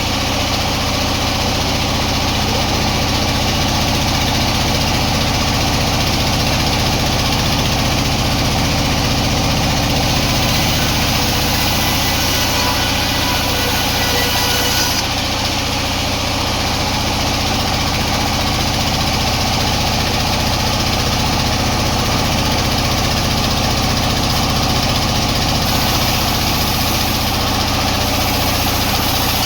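Sawmill machinery running steadily: a loud, constant machine drone with a low hum.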